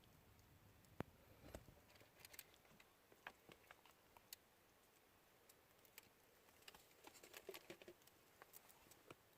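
Near silence, with scattered faint clicks and light taps and a small cluster of them near the end.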